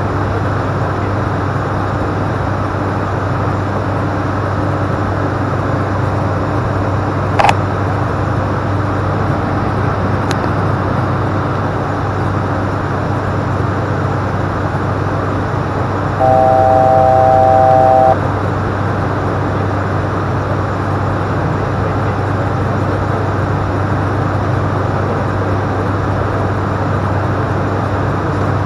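Steady cockpit noise of an ATR 42-500's turboprop engines and propellers, with a constant low hum. A sharp click sounds about a quarter of the way in. A little past halfway, a steady electronic chord of three tones sounds for about two seconds: a cockpit alert.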